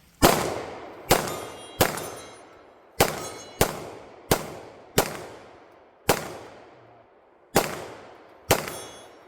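Ten gunshots fired at an uneven pace, roughly one a second, each trailing off in a long echo.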